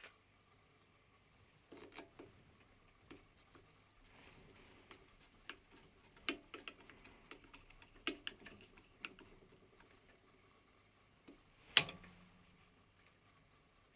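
Faint, scattered light metallic clicks and taps as a thin steel rod is fitted into and pulled out of the bore of a turned part held in a lathe collet chuck; the sharpest click comes near the end.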